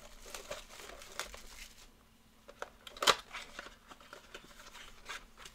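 A 2020 Panini Mosaic football blaster box being torn open by hand: crinkling and tearing of the wrapped cardboard box, with one sharper, louder rip about three seconds in.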